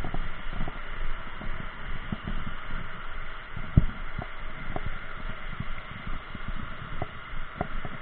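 Steady hiss of water pouring over a low weir, with frequent short knocks and thumps of hands and fishing tackle handled close to the microphone. The loudest thump comes about four seconds in.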